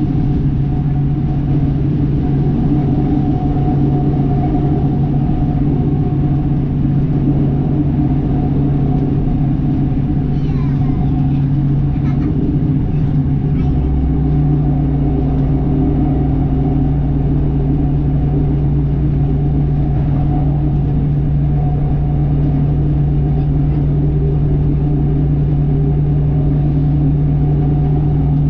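A diesel multiple-unit train running at speed, heard from inside the carriage: a steady engine drone with rumble from the wheels and track. About halfway through, the engine note changes and a deeper hum comes in.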